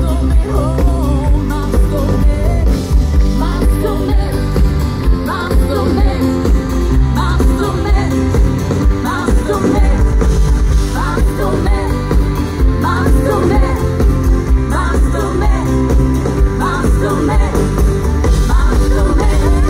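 Live Schlager pop band playing at concert volume, with a steady beat, bass and a sung vocal line.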